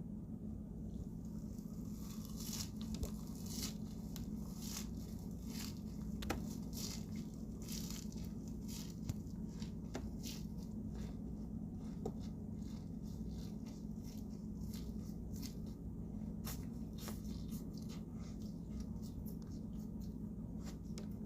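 Irregular close rustling, tearing and crunching of wild greens being handled and picked by hand, over a steady low hum.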